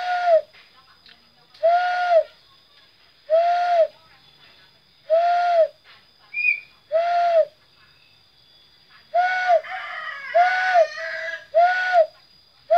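A man's cupped-hand call imitating a dove, the kuter geni: about eight hollow hoots, each about half a second long, at an even pace that quickens slightly near the end, with a higher warbling trill between them around the tenth second.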